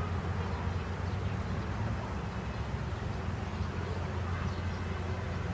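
Steady low rumble of outdoor background noise, with a few faint high chirps now and then.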